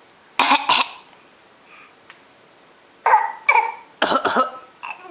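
A young child imitating his mother's cough: two quick coughs about half a second in, then a run of about five more from three to five seconds in.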